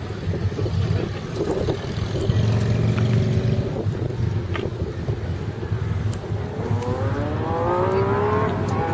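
Motorcycle engines running, with a steady low rumble; from about two-thirds of the way in, one engine accelerates, its pitch rising steadily.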